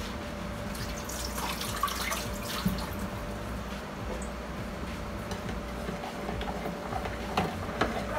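Cake batter being made in a bowl: scattered small clicks and wet, liquid sounds as ingredients go in and are worked, busiest in the first few seconds. A faint steady hum runs underneath.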